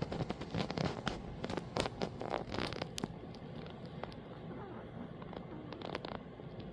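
Irregular rustling and crackling clicks, packed close together for about the first three seconds and then sparser.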